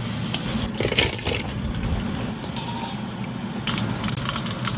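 Hot oil sizzling and crackling in a wok as deep-fried toothpick beef is lifted out in a wire spider strainer, with a brief metal clatter about a second in, over a steady low rumble.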